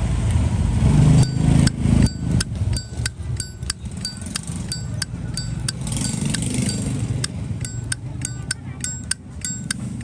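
Brushed-chrome Zippo lighter's hinged lid being flicked open and snapped shut again and again: a run of sharp metallic clicks, each with a short ring, coming faster near the end. A low rumble of traffic lies under the first few seconds.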